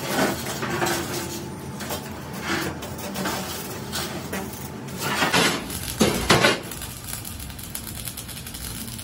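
A large rolled-steel tank shell being shoved and rolled across the floor, clanking and scraping, with a few loud metal knocks about five to six and a half seconds in. Near the end, electric arc welding crackles steadily on the tank's seam.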